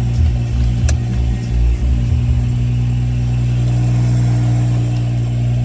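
BMW E92's engine idling steadily, with one light click about a second in.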